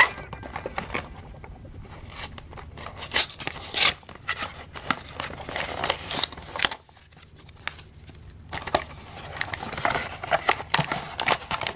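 Cardboard Vinylmation blind box being torn open and handled by hand: irregular ripping, scraping and clicking of card, with a quieter stretch about two thirds of the way through.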